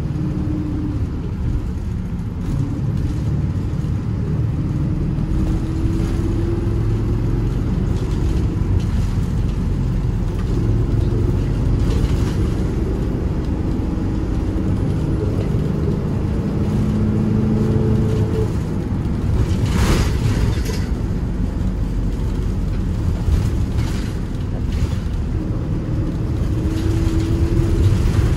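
A Hong Kong minibus driving, heard from inside the cabin: a steady engine and road rumble, with the engine note rising and falling as it speeds up and slows. There is a sharp knock about twenty seconds in.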